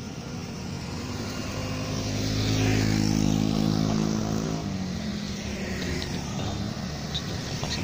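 Road traffic beside the site: a motor vehicle's engine passes close by, growing louder about two seconds in and fading by about five seconds. Fainter motorcycle engines follow on the road.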